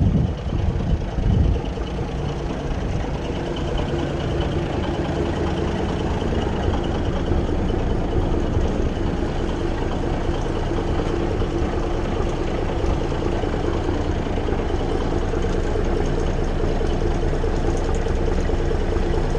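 Peterbilt 352 cabover's diesel engine idling steadily.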